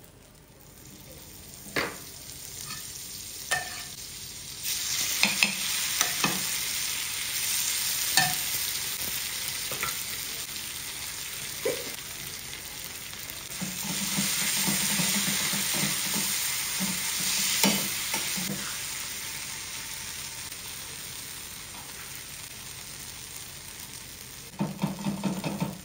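Minced-meat masala with chopped onion and tomato sizzling in butter on a flat tawa, the sizzle building about five seconds in and loudest around the middle. A metal spatula knocks and scrapes on the tawa now and then as the food is stirred and turned.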